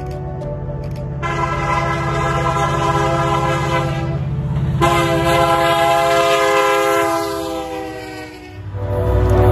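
Diesel freight locomotive horn (CP 7023) sounding two long chords over the low rumble of the approaching train. The pitch of the second blast sags toward its end, then the rumble of the train rolling past swells loudly.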